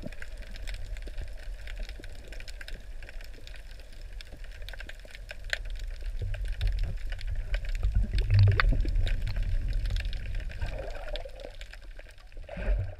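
Muffled underwater sound picked up by a camera held underwater: a steady low rumble of moving water with scattered faint clicks and crackles, swelling louder midway and with a brief louder surge near the end.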